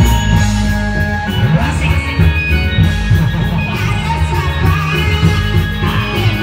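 Reog dance accompaniment music: an electronic keyboard melody over a steady drum beat.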